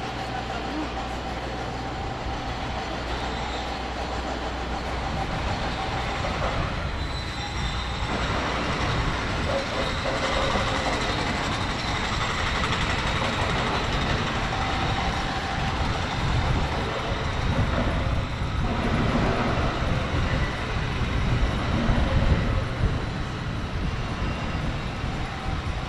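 Jerusalem Light Rail tram running nearby, a steady electric hum for the first several seconds, then giving way to a louder, broad rushing street noise that swells near the end.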